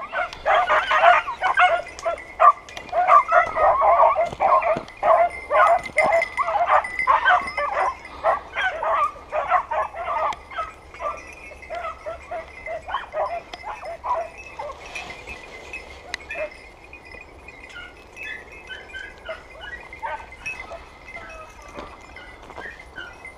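Hunting-dog barking in quick, repeated yelps, loud and dense for about the first ten seconds, then growing fainter and more scattered.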